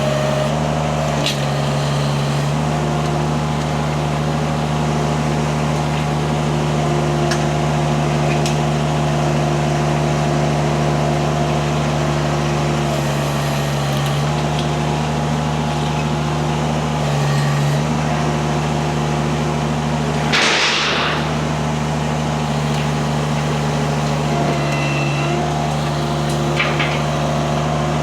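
Mini skid steer engine running steadily, its note stepping between a few levels as the hydraulics are worked, with a short hiss about twenty seconds in.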